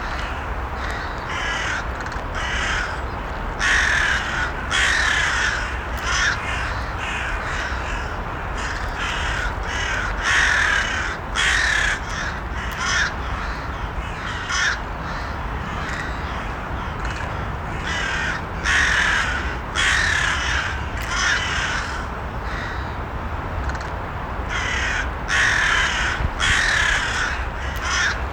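Crows cawing repeatedly, in irregular runs of short calls, over a steady low background noise.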